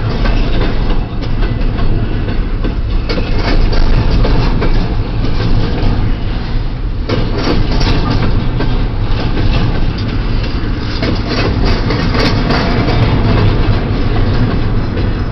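Double-stack intermodal freight train's well cars rolling past at close range: a steady heavy rumble with steel wheels clacking irregularly over the rail joints.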